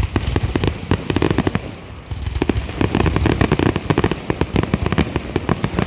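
Fireworks display going off in a dense, rapid barrage of bangs and crackling, easing briefly about two seconds in and then building up again.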